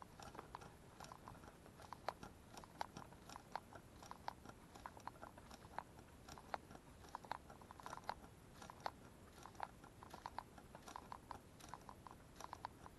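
Faint, irregular clicking and ticking of a spinning reel being cranked as a lure is retrieved, with light handling of the rod.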